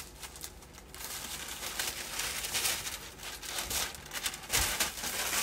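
Crisp organza suit fabric rustling and crinkling as it is unfolded and shaken out, with a soft thump about four and a half seconds in.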